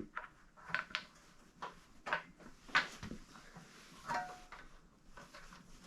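A 1975 Honda CB750's oil tank knocking and scraping against the motorcycle frame as it is wiggled out through a tight gap: a string of irregular clunks and rubs, about one every half second.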